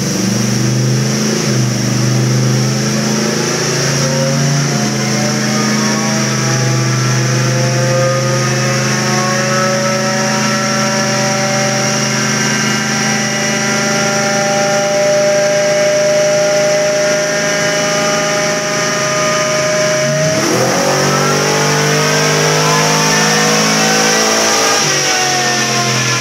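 Danzio 462-cubic-inch LSX V8 in a Camburg trophy truck running on a chassis dyno. The engine note climbs slowly and steadily for about twenty seconds as it pulls against the rollers, drops suddenly, then climbs again near the end. A steady high hiss runs underneath.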